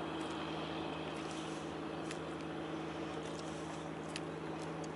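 Steady low hum of an idling boat engine over wind and water noise, with a few faint clicks.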